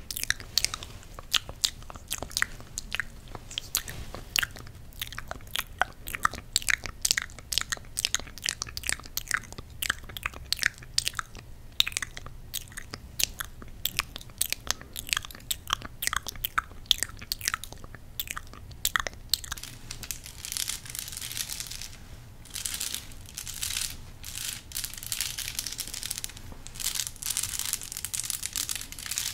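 Close-miked ASMR wet-finger sounds: wet fingers worked together near the microphone, giving a rapid stream of sticky, wet clicks. About twenty seconds in this changes to a crown being handled against the microphone, a hissy rustling that comes in swells.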